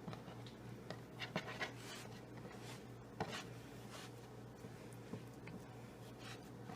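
Faint soft rubbing and a few light taps of hands rolling up a sheet of dough on a floured board, over a low steady hum.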